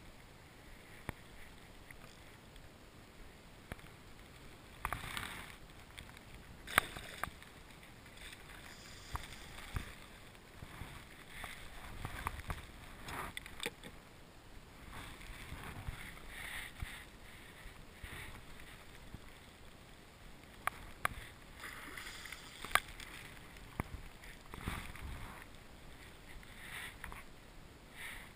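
Faint water lapping around a small inflatable boat, with scattered clicks and knocks from fishing gear being handled; a few knocks stand out loudly.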